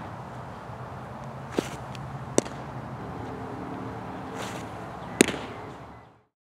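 A pitched baseball smacking into the catcher's leather mitt about five seconds in, the loudest sound, after two lighter smacks a couple of seconds in. A steady outdoor background runs under it and fades out to silence near the end.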